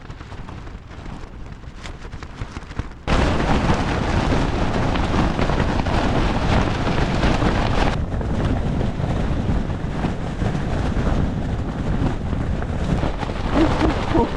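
Strong wind gusting against a tent and the microphone, a loud, steady rushing noise with heavy low rumble. It follows a quieter stretch of breeze and comes in suddenly about three seconds in.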